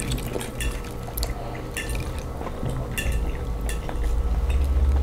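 Close-up eating sounds: wet chewing and mouth clicks with small taps of forks on plates, and a sip of iced tea through a straw near the end. A steady low hum runs underneath.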